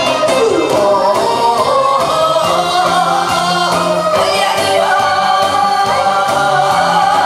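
A woman singing live into a microphone over amplified music with a steady beat, her voice wavering with vibrato.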